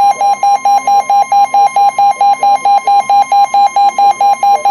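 Weather radio alert alarm: a loud steady high tone with a rapid pulsing beep over it, about five beeps a second. It signals an incoming severe thunderstorm warning.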